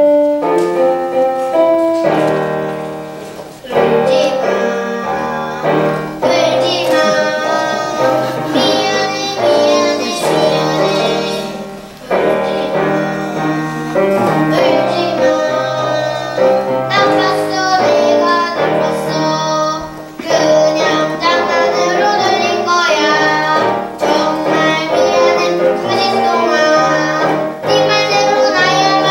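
Young children singing a song together over a musical accompaniment, in phrases with short breaks between them.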